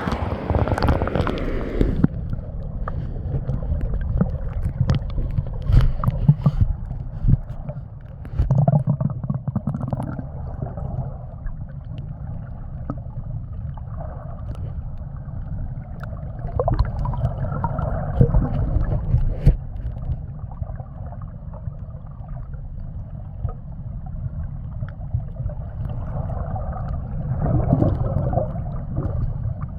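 Sea water sloshing and gurgling around a small boat, over a steady low rumble, with scattered small knocks.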